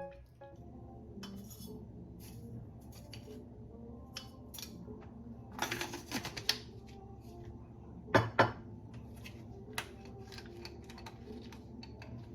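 Scattered clinks and knocks of dishes and cutlery, loudest in a cluster about six seconds in and two sharp knocks about eight seconds in, over a low steady hum.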